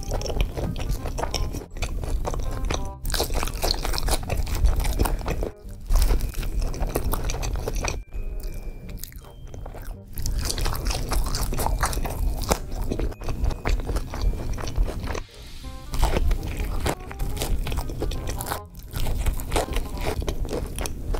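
Close-miked crunching, biting and chewing of crispy fried chicken and fries, with background music.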